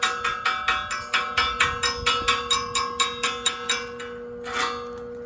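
Hammer striking steel in a fast, even run of blows, about five a second, the metal ringing after each hit. The blows stop about four seconds in, followed by a brief rushing sound.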